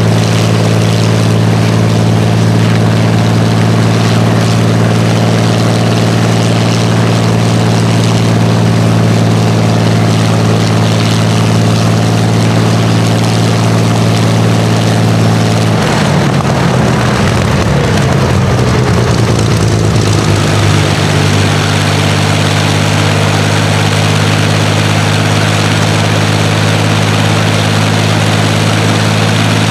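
Rolls-Royce Merlin V12 aero engine running on a display stand, a loud, steady multi-toned note. About halfway through the note breaks up and slides lower for a few seconds, then settles back to a steady run.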